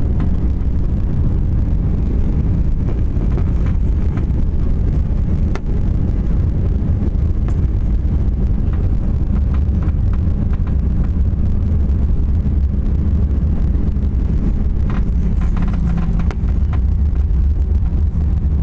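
Steady low rumble of an Airbus A321's cabin as the airliner taxis on the ground after landing, its jet engines at idle and its wheels rolling.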